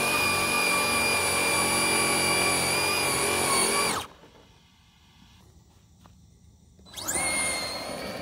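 Team Associated DR10 RC drag car's motor spinning its rear wheels while the car is held in place to warm the tyres, a steady high whine that cuts off about four seconds in. About three seconds later the motor whines up in pitch as the car launches, then fades as it runs away.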